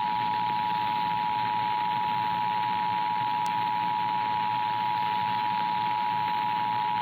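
Emergency Alert System attention signal: two steady tones sounding together at 853 and 960 Hz, held unbroken over a faint steady hiss. It is the alert tone that comes before the spoken monthly test message.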